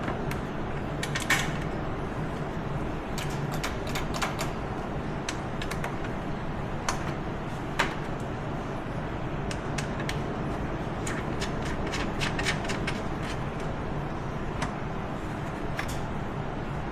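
Irregular small clicks and taps of hand tools and metal parts being handled, some in quick clusters, over a steady background hum.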